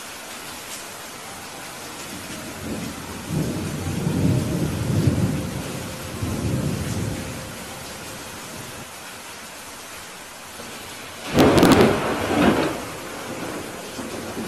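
Steady rain on window glass, with a long low thunder rumble building about three seconds in and fading by seven, then a sharp thunderclap about eleven seconds in that rolls off over a second or so.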